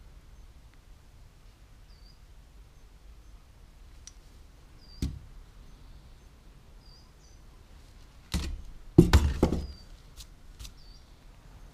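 A car's clutch friction disc and pressure plate being handled and set down on a wooden surface. There is a single knock about five seconds in, then a louder cluster of knocks about three seconds later.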